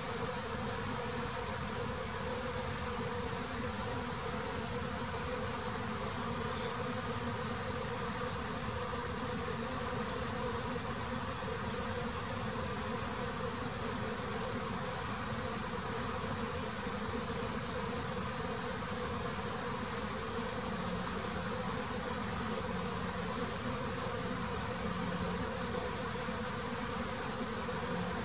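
Honeybees buzzing steadily in a dense hum around the hive. A high, evenly pulsing tone runs above the hum.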